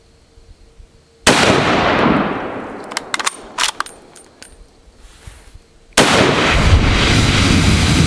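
A rifle shot about a second in that dies away over a couple of seconds, followed by a few sharp clicks. Near six seconds another sudden blast turns into a steady loud roar of propane jetting and burning from the punctured BBQ tank.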